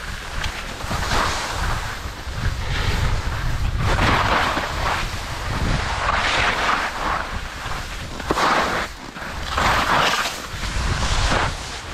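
Skis scraping and hissing through soft spring snow, the hiss swelling and fading about every one to two seconds as the turns come, over wind rumbling on the microphone.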